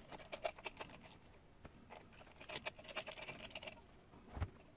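Hex driver turning the small beadlock ring screws on a steel 1.9-inch RC crawler wheel, with quick clicks and small scrapes of the tool on the screws and the rubber tire being handled, and a faster run of ticks about two seconds in. A dull thump near the end.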